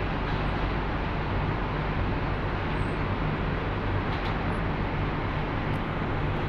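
Powder coating booth running: a steady rushing noise of the booth's extraction fan and the compressed air driving powder through a hand-held spray gun, over a constant low hum.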